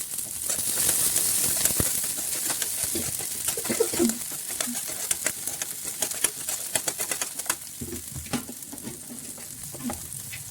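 Onions and peas frying in hot oil in a pan: a steady sizzle, loudest in the first couple of seconds, with a spoon clicking and scraping against the pan as they are stirred.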